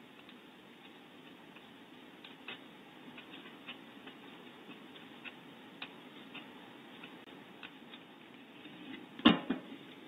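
Faint steady hiss inside an empty barn owl nest box, with scattered small ticks and clicks, then near the end a sharp knock followed by a lighter one.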